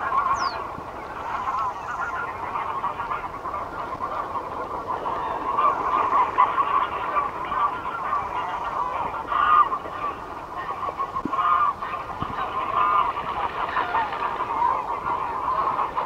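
Greylag geese honking, many calls overlapping without a break, with a few louder honks standing out now and then.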